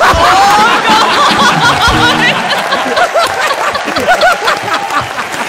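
Studio audience and guests laughing loudly together, with hand clapping running through the laughter.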